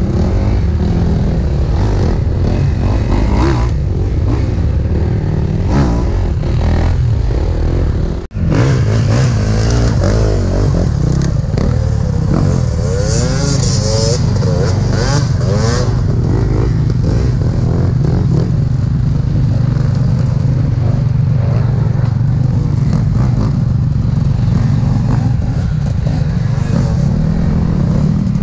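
Two-stroke enduro motorcycle engine running under load, its revs rising and falling as the bike is ridden. The sound cuts out for an instant about eight seconds in.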